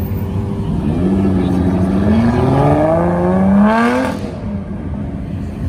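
A car engine revving as it accelerates, its pitch rising steadily for about three seconds, then cutting off sharply with a short rush of noise about four seconds in.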